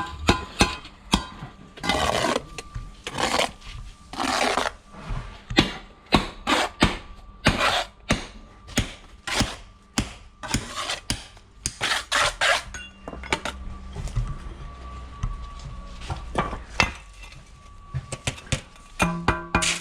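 Steel bricklaying trowel scraping and spreading mortar in short strokes, with frequent sharp taps and knocks of the trowel on concrete blocks.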